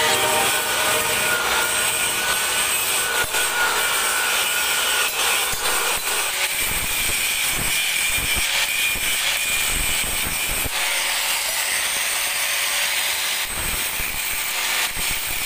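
A power tool working on metal, running steadily, with a thin high whine for a few seconds midway.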